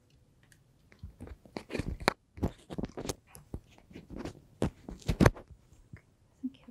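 Microphone being handled as it is passed from one speaker to the next: a run of irregular knocks, taps and rustles on the mic, the loudest a little past five seconds in.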